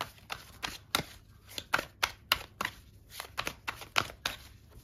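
A tarot deck being shuffled by hand, overhand: a quick, irregular run of card flicks and slaps, about four or five a second.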